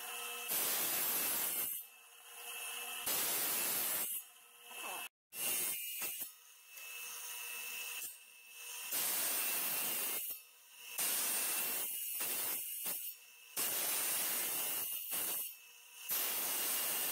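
Wet tile saw's diamond blade cutting a row of short parallel relief cuts into a large-format tile: a loud grinding hiss with each plunge into the tile, about a second long and repeated every one to two seconds, with the saw's motor running steadily in between.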